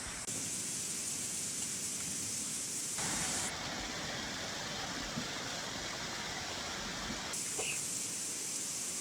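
Steady rushing of a stream running high after heavy rain, an even hiss of flowing water whose tone shifts abruptly a few times.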